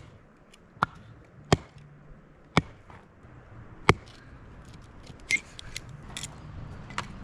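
A dull axe striking a dense block of firewood, chopping off corners for kindling slivers: five sharp chops at uneven intervals in the first four seconds, then lighter knocks and clicks.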